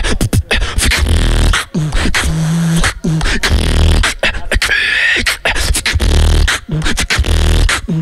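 Beatboxer performing into a handheld microphone: deep bass kicks about once a second under quick clicky snares and hi-hats, with a short hummed low note about two and a half seconds in and a high wavering tone about five seconds in.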